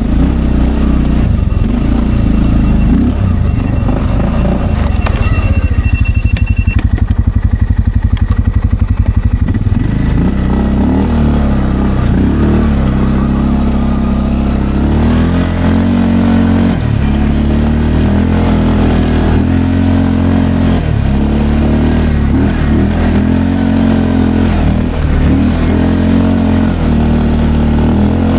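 Linhai Landforce 550L ATV engine running under the rider, first at a low even pulse, then rising and falling over and over with throttle changes while driving. A thin high whine sounds along with it for the first six seconds or so.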